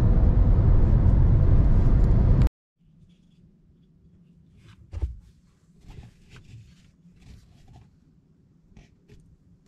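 Steady road and engine noise inside a moving car's cabin, cut off abruptly about two and a half seconds in. Then a low quiet with a few soft knocks and rustles, the loudest about five seconds in.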